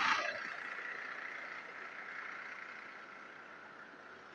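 A passing vehicle, loudest at the start and fading away over several seconds.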